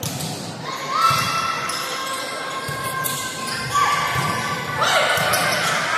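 Volleyball rally on an indoor court: sharp hits of the ball and several short, rising squeaks of athletic shoes on the floor, echoing in a large hall over a background of spectator chatter.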